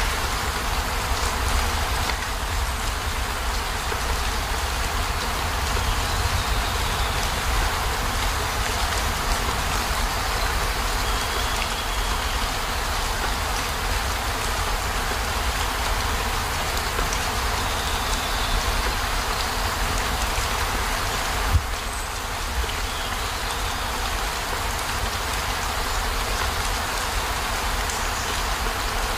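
Steady heavy rain falling on a camper van's roof and windows, an even hiss of drops over a constant low rumble. A single short knock sounds about two-thirds of the way through.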